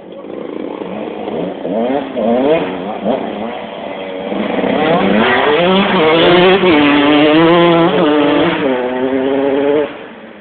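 125 cc two-stroke motocross bike riding past, its engine rising in pitch again and again with brief drops between as it revs through the gears. It is loudest midway and falls away sharply near the end.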